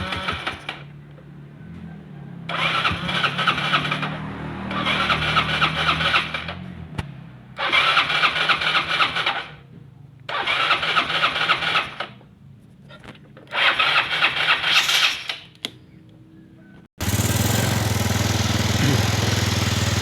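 Yamaha Mio Sporty scooter's 115 cc single-cylinder engine being cranked on the starter in about six separate bursts, stopping in between, as it is test-started after its carburettor was cleaned to cure hard starting. Near the end it runs steadily.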